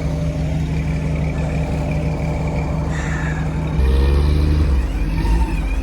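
A 4x4's engine idling steadily. About four seconds in it turns louder and deeper with a short rise in pitch, as if revved or heard closer.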